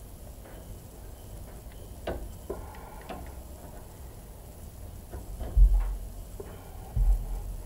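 Scattered light clicks and taps of hand tools working on metal, with two dull low thumps about five and a half and seven seconds in.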